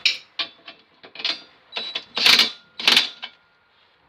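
Irregular metal clinks and clanks of tools or hitch hardware being handled, about eight strikes with a short metallic ring, the loudest two near the middle, then quiet.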